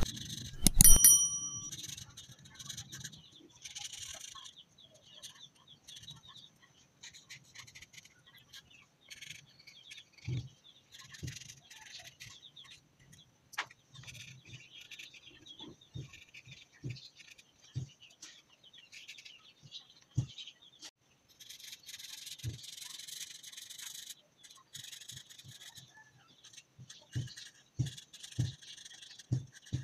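Felt-tip markers scratching and rubbing on paper as they colour in, coming in patches of scratchy hiss with scattered soft knocks in between. About a second in there is a loud click with a short ringing tone.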